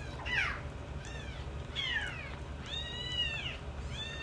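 Very young kittens mewing: about four high, thin cries, most sliding downward in pitch, with the longest one, near the three-second mark, rising and then falling.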